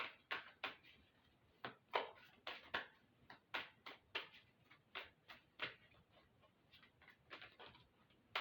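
Tarot cards being shuffled by hand: a faint, irregular run of short slaps and clicks, about two or three a second.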